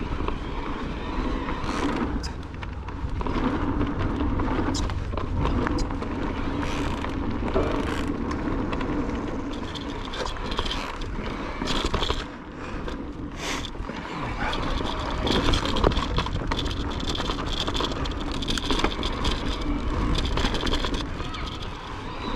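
Cube Stereo Hybrid electric mountain bike being ridden over a trail: tyres rolling on dirt, wind rumbling on the microphone, and frequent short clicks and knocks as the bike runs over bumps.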